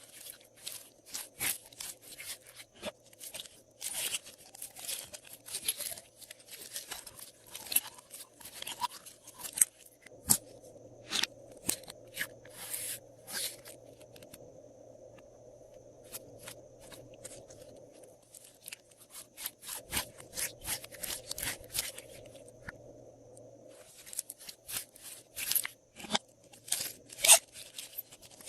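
Glossy slime being kneaded and squished by hand, giving runs of sticky clicking and crackling. There are short pauses midway and near the end.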